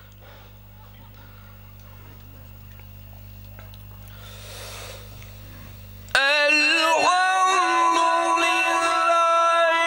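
Low electrical hum from the sound system and a short soft hiss, then about six seconds in a man's voice enters loud through the PA: Quran recitation (tilawat) sung in a drawn-out melodic chant, holding a long wavering note.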